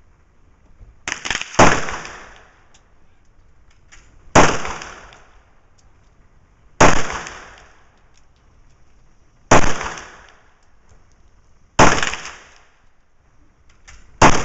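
About six single pistol shots from a Star Modelo Super A in 9mm Largo, fired slowly, one every two to three seconds, each followed by a short ringing echo.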